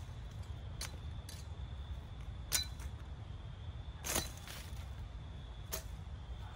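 1920s Sears sickle swept through weed stems in short, sharp cutting swipes, about six in all, slicing the weeds without them being held. The swipe about four seconds in is a little longer.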